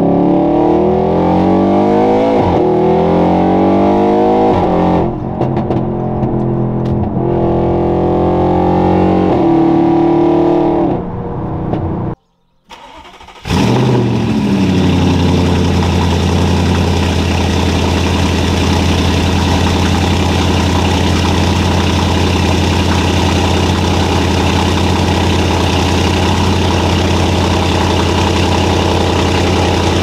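Stage 2 tuned Audi RS6 twin-turbo V8 heard from inside the cabin, accelerating hard with its pitch climbing and dropping at each gear change. After a brief break, the engine comes in with a burst of revs that falls away into a steady idle.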